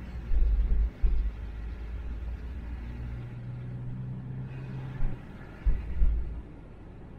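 Low vehicle rumble with a steady low hum for about two seconds in the middle, and several loud, low thumps near the start and again near the end.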